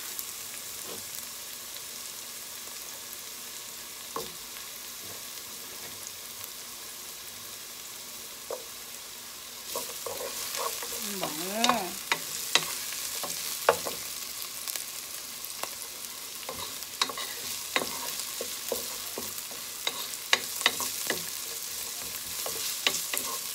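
Chopped garlic, onion and fresh ginger sizzling in oil in a nonstick pot. About ten seconds in the sizzle grows louder and a wooden spoon starts stirring, with frequent light clicks and knocks against the pot.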